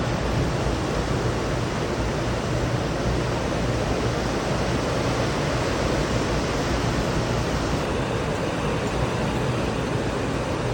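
Steady rushing noise of ocean surf, an even roar with no breaks.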